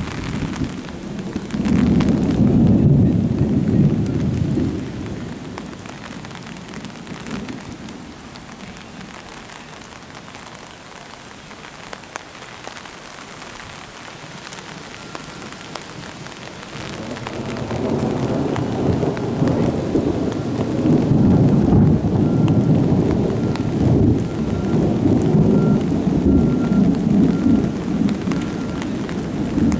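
Thunderstorm: two long rolls of thunder, one a second or so in and a longer one starting about halfway through, over steady rain.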